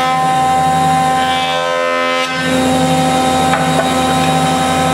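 Delta DJ-30 jointer's cutterhead running and planing the face of a rough board, with the sound of the cut ending about two seconds in. The jointer then runs on freely with a steady hum.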